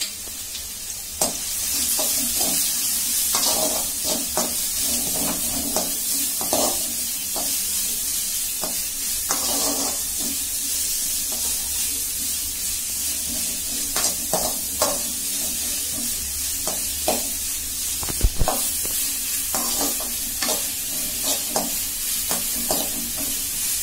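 Chopped onion, capsicum, carrot and cabbage sizzling in hot oil in a metal kadai, stirred with a slotted spoon that scrapes and clicks against the pan at irregular intervals. The sizzle picks up about a second and a half in, and there is one sharper knock about three quarters of the way through.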